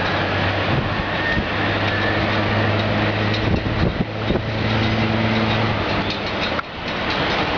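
Boeing 757 jet engines starting up during pushback: a steady rushing drone with a low hum underneath, dipping briefly near the end.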